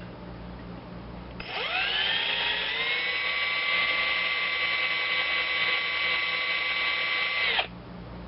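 Small electric drill spinning up about a second and a half in, running steadily with a high whine for about six seconds, then stopping. It is drilling out a contact of an outboard motor kill switch with a number 45 bit.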